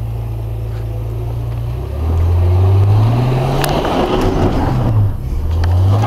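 Jeep Cherokee engine, heard from inside the cabin, running steadily and then revving under throttle as it pushes up an off-road trail: the pitch climbs about two seconds in, drops back briefly near four and a half seconds, and climbs again. A single sharp click comes about three and a half seconds in.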